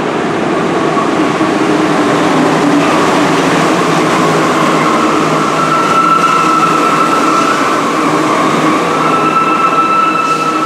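Santiago Metro NS16 rubber-tyred subway train arriving at a station and running along the platform, a loud steady rumble and rush. A steady high whine joins it about halfway through.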